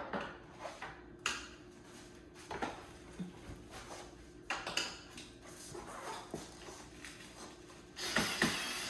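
Scattered knocks and clicks of parts and tools being handled. About eight seconds in, a small cordless drill starts whirring, driving out screws.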